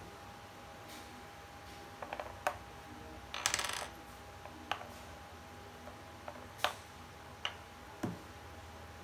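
Plastic chess pieces clicking as they are picked up and set down on a folding chess board: scattered sharp clicks, a short clattering rattle of pieces knocking together about three and a half seconds in, then single clicks a second or so apart.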